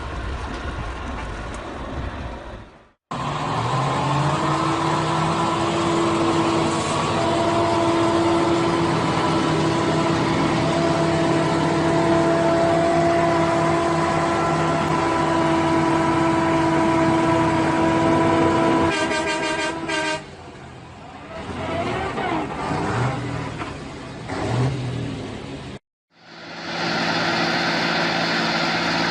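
A vehicle horn sounding in one long, steady blast over engine and traffic noise, cut off abruptly, followed by a quick run of rapid pulses.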